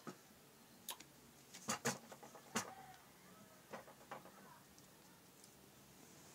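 A handful of sharp knocks and clatters over about four seconds, the loudest a cluster near two seconds in: a plastic cup set down on a tabletop and a person getting up from the table.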